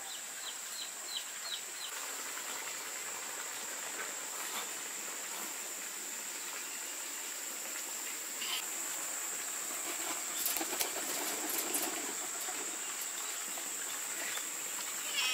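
A steady high-pitched drone of insects, with a small bird chirping rapidly, about four chirps a second, for the first second or so. About ten to twelve seconds in comes a brief flurry of wing flaps from pigeons.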